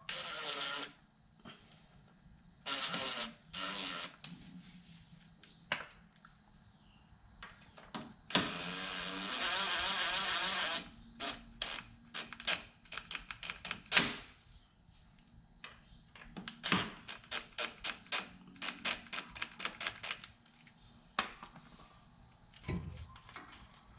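Cordless impact driver driving stainless steel screws into a boat hull: several bursts of rapid hammering, the longest lasting about two seconds, followed by a long run of short sharp clicks.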